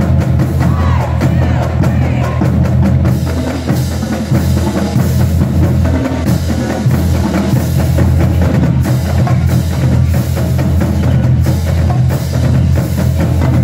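Marching drumline of snare drums, tenor drums and bass drums playing a fast cadence, a dense run of rapid drum strokes.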